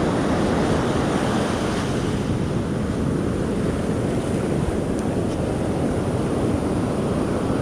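Ocean surf breaking and washing in a steady rush, with wind buffeting the microphone.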